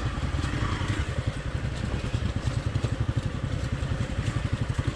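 Hero XPulse 200 motorcycle's single-cylinder engine running steadily under way, its exhaust a fast, even low pulsing.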